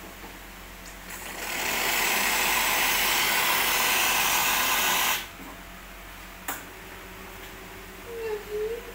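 Rancilio espresso machine's steam wand opened, giving a loud steady hiss of steam for about four seconds that cuts off suddenly when the valve closes, followed a second later by a single sharp click.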